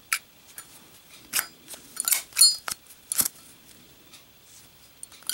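Brass Zippo lighter handled: scattered sharp metallic clicks and scrapes, a couple with a brief high ring, as the brass insert is worked in and out of the brass case.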